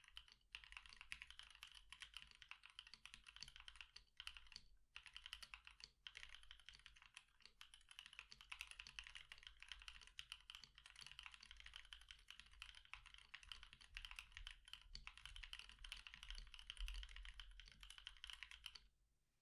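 Fast, continuous typing on a Switch Couture Alice R2 mechanical keyboard with an acrylic plate, lubed and filmed 72g NovelKeys Cream linear switches and PBT keycaps. It is a dense stream of quick keystrokes with a few short pauses, and it stops just before the end.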